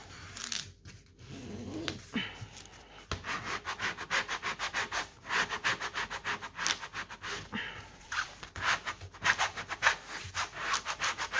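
Hands rubbing a creased cross-stitch canvas, then from about three and a half seconds a green plastic scraper stroked quickly and repeatedly across it. The short scraping strokes come several a second, pressing the creases flat.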